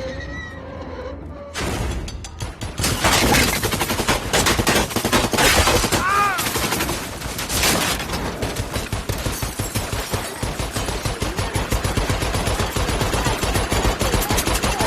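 Film soundtrack gunfire: a sudden burst of heavy shooting about a second and a half in, turning into sustained rapid automatic fire with many overlapping shots.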